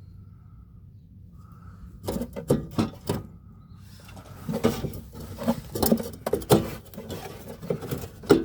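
Irregular knocks, clunks and rattles of a car's fuel filler neck being pushed and worked through its opening in the body. They start about two seconds in after a quiet stretch.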